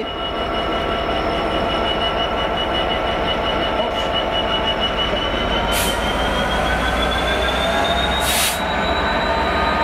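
Train of passenger coaches hauled by a Class 66 diesel locomotive rolling past, with a steady high whine from the wheels that climbs slightly in pitch over the second half. Two short hisses cut in, one about six seconds in and another just after eight seconds.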